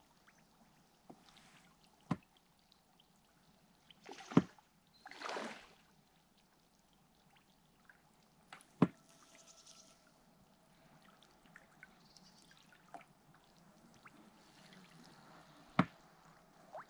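Oars of an inflatable boat dipping in still lake water: two short splashy swishes with trickling drips, and a few sharp knocks spread through.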